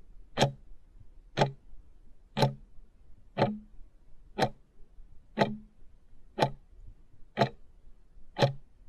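Ticking clock sound effect counting down, one sharp tick each second, nine in all.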